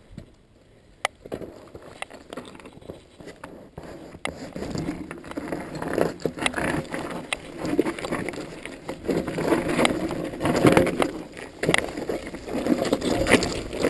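Norco Storm hardtail mountain bike with 26x2.5 Continental Mountain King tires rolling down a rough rocky trail: tires crunching over rock and gravel with the bike clattering and rattling. A few sharp clicks at first, then from about four seconds in the clatter grows louder and almost continuous.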